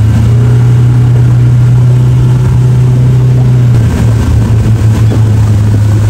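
Motorboat engine running hard at speed while towing a tube, a loud steady low drone that drops slightly in pitch about four seconds in.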